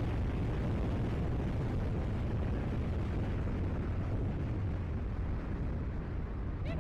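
Wind rushing and buffeting the microphone in a steady, heavy low rumble as a rider flies down a high-speed zip line, with the trolley running along the cable. A short falling pitched tone comes in right at the end.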